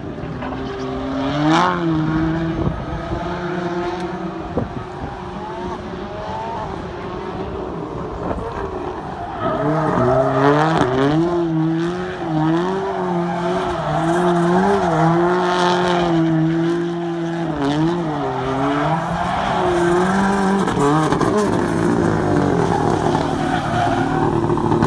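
Subaru WRX STI rally car's turbocharged flat-four engine held at high revs and blipped up and down while the car drifts, with tyres squealing. It grows louder about ten seconds in.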